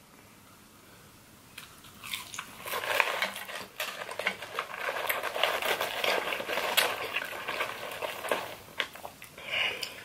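Close-miked eating and handling sounds: after a quiet start, a dense run of crackles and crinkles from about two seconds in as Wendy's fries are pulled from their paper fry carton, dipped in cheese sauce and eaten, with a short burst near the end.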